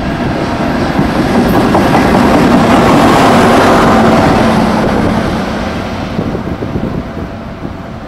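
NJ Transit track inspection vehicle running past close by on the rails. It rises to its loudest about three to four seconds in, then fades as it moves away.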